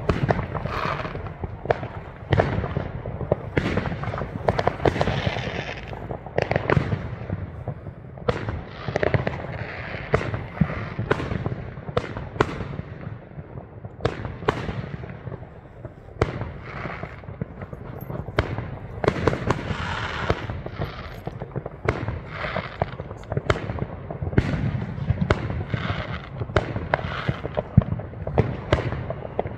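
Fireworks going off: a dense, irregular run of bangs and crackles, several a second, over a continuous low rumble.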